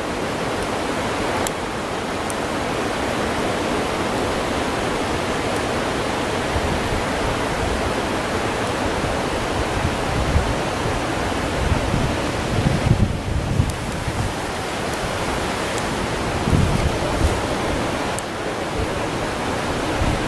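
Steady rush of flowing river water. Low gusts of wind buffet the microphone from about halfway through.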